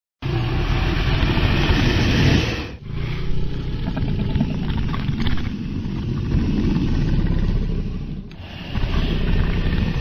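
Dragon sound effect: a loud, deep rumbling noise that starts abruptly out of silence. It dips briefly about three seconds in and again near eight seconds, then carries on.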